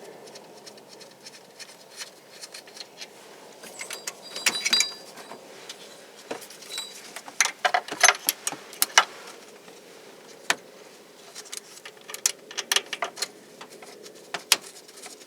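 Metal tools and parts clinking and clattering in irregular clicks, a few of them ringing briefly, as hands work under a truck's hood.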